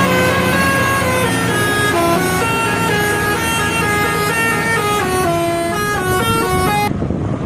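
Indonesian bus 'telolet' musical horn playing a quick tune of held notes, several sounding together and stepping from pitch to pitch, over a low steady drone. The tune breaks off abruptly near the end.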